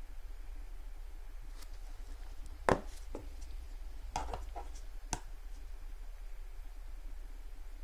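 Silver coins set down on and lifted off a Sigma Metalytics precious-metal verifier for purity testing: a handful of hard knocks and clicks, the loudest a little under three seconds in, over a low steady hum.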